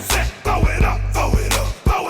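Hip hop music with a heavy bass beat and a rapped vocal.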